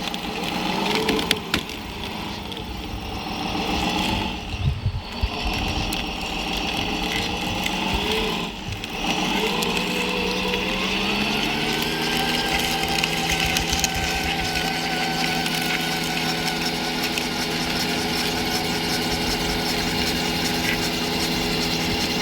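Radio-controlled construction model machinery running: a motor whine that rises and falls in pitch for about the first ten seconds, then holds steady at one pitch.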